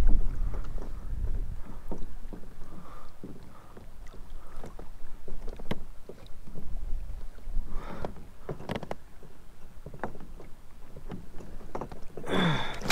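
Wind buffeting the microphone in uneven gusts, with scattered small knocks and clicks from handling gear on a small boat.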